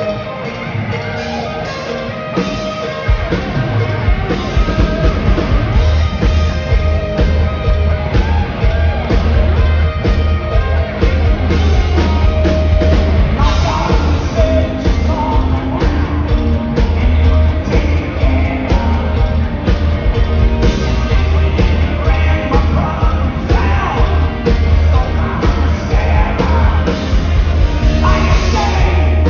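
Live hard rock band playing: electric guitar, bass and drums with a sung lead vocal. About three seconds in, the bass and drums come in and the music gets louder and fuller.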